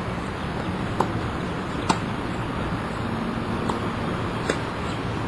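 Tennis ball being struck and bouncing on a court: four short sharp pops, in two pairs about a second apart, over a steady background rush.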